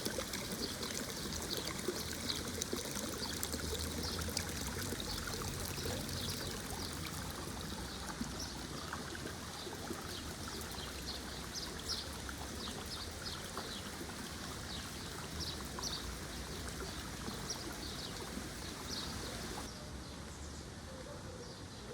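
Water running and trickling in a small stream, with many small splashes; the high end of the sound drops a little near the end.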